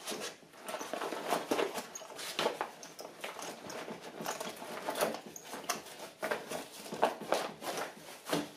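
A thick fabric crampon bag rustling as it is handled and closed, with the steel crampons inside shifting and clinking in irregular scuffs and clicks.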